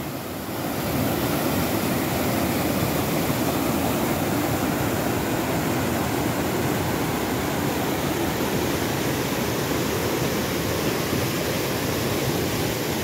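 Rushing water of the Río Pipo waterfall, a steady, dense rush that comes up about a second in and holds.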